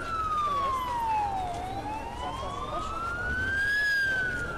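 Warning siren wailing in a slow up-and-down sweep: the W-Hour alarm sounded across Warsaw. It falls, turns upward about a second and a half in, peaks near the end and starts to fall again.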